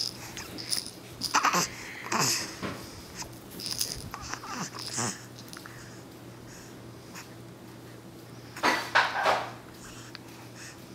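A baby's breathy, wheezy little vocal sounds in several short bursts, the loudest about nine seconds in.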